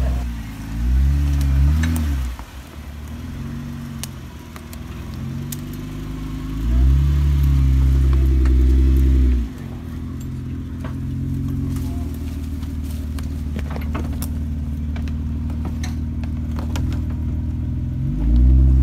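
Jeep Wrangler engine revving in surges as the Jeep crawls over trail obstacles, its pitch rising and falling with the throttle: loud pushes about a second in, in the middle and near the end, with steadier running between. Scattered sharp clicks sound over it.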